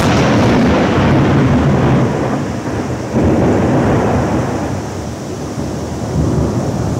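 Thunder from a nearby lightning strike: a loud clap that starts abruptly and rolls on as a deep rumble, swelling again about three seconds in and then slowly fading, over falling rain.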